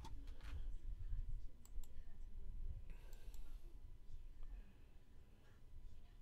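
A few faint, light clicks and taps at irregular intervals over a low rumble.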